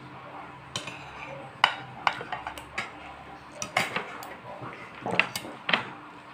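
Metal spoon and fork clinking and scraping against a plate of rice in a string of irregular sharp clinks, the loudest about one and a half seconds in.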